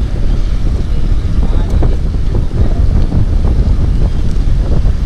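Loud, low wind buffeting on the microphone of a camera riding along on a mountain bike, with faint voices underneath.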